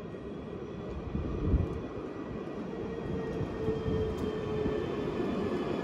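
Alstom Citadis 305 tram approaching along street track, its running sound growing steadily louder, with a faint steady whine about halfway through. A brief thump about a second and a half in is the loudest moment.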